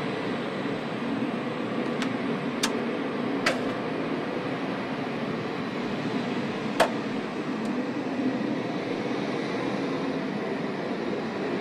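Steady mechanical drone of machinery with several sharp clicks over it, the loudest a little under seven seconds in.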